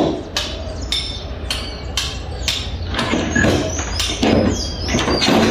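Hammer blows on a building site, a steady run of sharp knocks about two to three a second, with louder noisy knocks and scrapes over the second half.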